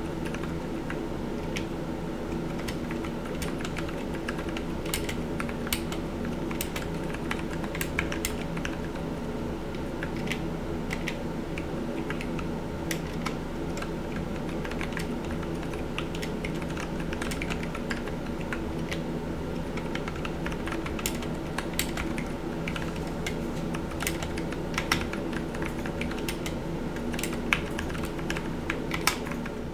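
Continuous typing on a Drop Carina mechanical keyboard fitted with lubed, filmed Zealios V2 tactile switches on an aluminum plate in a frosted acrylic case: an irregular stream of keystroke clacks. Under it runs a steady fan hum.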